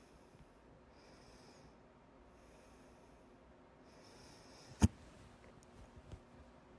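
A single loud, sharp hiccup about five seconds in, over faint breathing.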